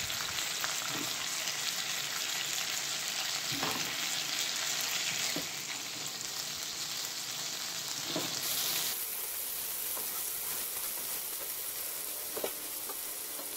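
Hot oil and vegetable juices sizzling steadily in a nonstick frying pan as sautéed bok choy is lifted out with tongs, the sizzle easing a little about halfway through. A few light clicks of the tongs against the pan.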